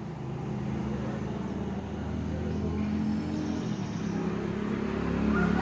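A motor vehicle's engine running, with a steady low hum that grows gradually louder.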